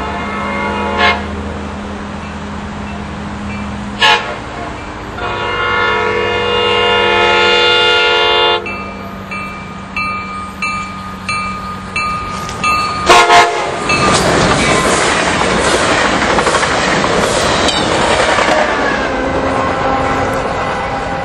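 A train horn sounds a short blast ending about a second in, then a longer blast of several seconds. Sharp clicks follow, like wheels over rail joints, and then the loud, steady rushing of a train passing close by.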